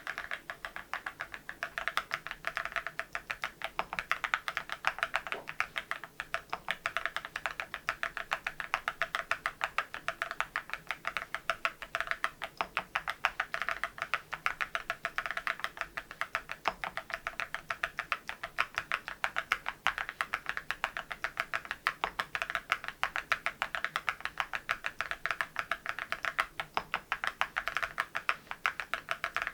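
Steady, fast typing on an MZ Y3 mechanical keyboard fitted with ceramic keycaps: a continuous run of crisp key clacks, several a second.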